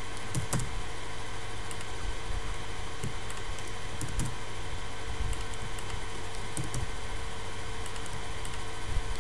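Scattered, irregular clicks from a computer keyboard and mouse over a steady background hum and hiss from the recording setup.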